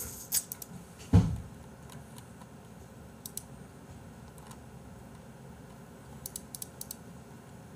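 Computer mouse clicking in a few short clusters of sharp clicks while a web page is browsed. One low thump about a second in is the loudest sound.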